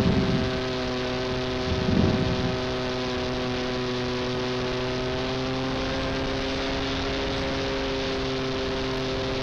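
Brushless outrunner motor and 13x4 propeller of a foam aerobatic RC plane, heard from an onboard camera, running at a steady throttle with a constant droning whine whose pitch sags slightly. Wind buffets the microphone at the start and again about two seconds in.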